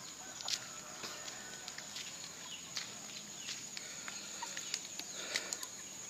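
Quiet rural yard ambience: a steady high-pitched insect drone with scattered light footsteps, and a short chicken cluck about five seconds in.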